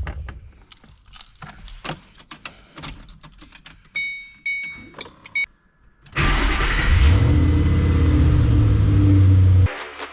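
Clicks and a few short electronic beeps, then about six seconds in the Saleen S281 Mustang's 4.6 L V8 cranks and fires, flaring up and settling into a loud, steady run before cutting off abruptly. The car is being started with a newly installed push start button.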